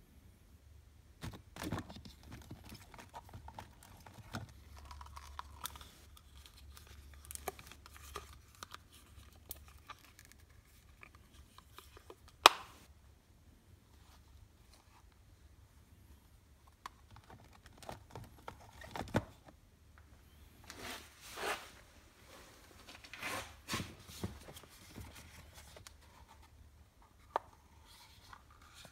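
Cardboard eyelash packaging boxes being handled: scattered rustling, scraping and rubbing of paperboard, with short clicks and one sharp, loud click about twelve seconds in and another near nineteen seconds.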